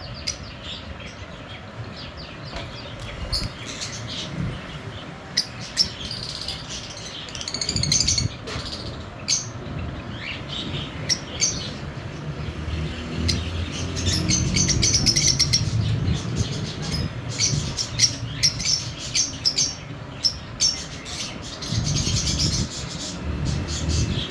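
A pair of white lovebirds chirping: many quick, sharp, high chirps, bunched into busier spells, over a low background rumble.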